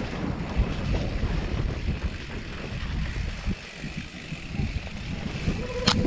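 Wind buffeting the microphone of a camera carried on a moving mountain bike, a steady fluttering low rumble. A sharp click near the end.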